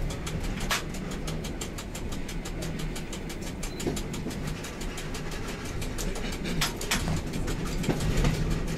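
Train running slowly over station trackwork, heard from on board: a steady low hum and rumble with a fast, even ticking and a few sharper clicks, one about a second in and two near the end.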